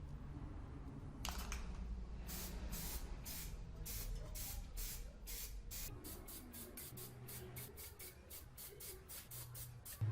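Paint sprayed in short repeated hissing bursts, about two a second at first, then quicker at about three a second.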